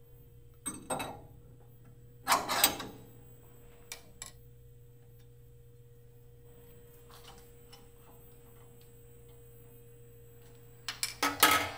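Metal clanks and knocks from a steel right-angle attachment bracket being fitted onto a mill's spindle nose and its clamp worked with a hex key. There are a few separate knocks, the loudest about two and a half seconds in and a cluster near the end, over a steady low machine hum.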